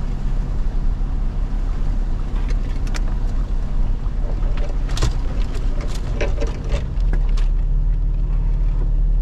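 Vehicle engine running steadily at low speed, heard from inside the cab as it drives along a waterlogged dirt trail. Short sharp knocks and scrapes come at intervals, and the engine gets louder about seven seconds in.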